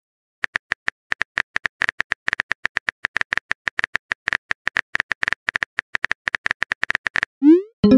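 Rapid virtual-keyboard typing clicks, several a second and unevenly spaced, as a chat message is typed out. The clicks stop about seven seconds in, and a short rising swoosh follows as the message is sent.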